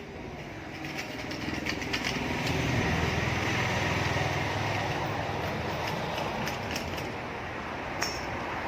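A motor vehicle engine running nearby, growing louder over the first few seconds and then holding steady, with a few light clicks and scrapes from hand work on the plastic grille.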